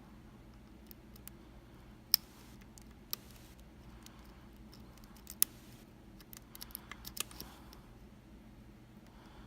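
Lock picks clicking inside a Kaba Quattro S lock with four rows of pins: a few separate sharp clicks, then a quick run of smaller clicks near the end.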